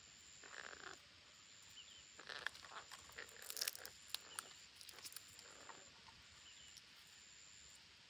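Green parakeets making short rasping calls and clicks: one burst about half a second in, then a denser run of scratchy calls and sharp clicks from about two to four and a half seconds in. Faint high chirps and a thin, steady high tone that stops and starts sit behind them.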